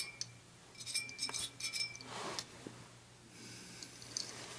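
Light metallic clinks and knocks from an oil burner motor and its squirrel-cage blower wheel being handled and turned over on a workbench, with a cluster of clicks about a second in and a soft swish a little later. A faint steady hum lies underneath.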